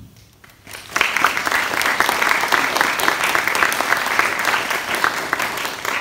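Audience applauding, starting about a second in after a brief lull.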